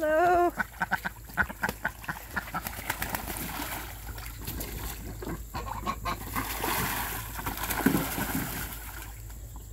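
Domestic goose honks once at the start, then a quick run of sharp strokes as geese beat their wings. This gives way to steady splashing from white ducks bathing in a plastic paddling pool, with scattered goose and duck calls.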